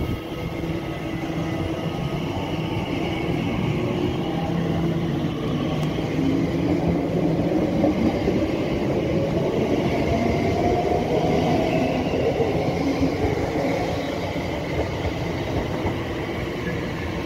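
Class 345 Elizabeth line electric multiple unit running past along the platform: steady electric traction hum over wheel-on-rail rumble. It grows louder toward the middle and eases off near the end.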